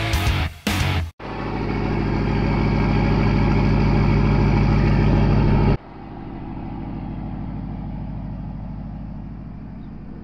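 A Ford Super Duty pickup's engine idling steadily, first close up and then, after a cut about halfway through, quieter and farther off. The first second is the tail of a loud electric-guitar rock track.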